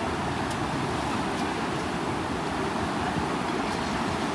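Steady rush of floodwater pouring through a sluice gate, an even, unbroken roar of water.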